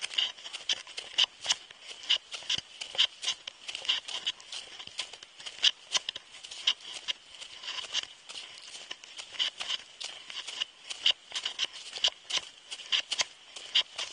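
A hiker's boots crunching on a snowy mountain trail while walking downhill: a quick, uneven run of steps, about two to three a second.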